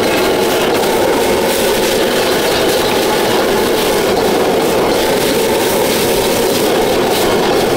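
Stir-frying fried rice in a wok: a metal spatula scrapes and clanks steadily against the wok over the continuous noise of a strong gas burner.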